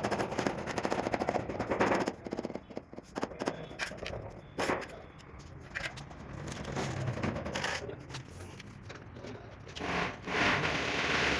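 Tile-setting work on stone and tile: a fast run of rattling taps for about two seconds, then scattered knocks and scraping, with a steadier grinding-like noise starting near the end.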